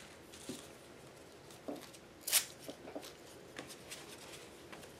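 Faint handling of paper craft materials on a desk: a few soft taps and scrapes, with one brief sharp rustle about two and a half seconds in.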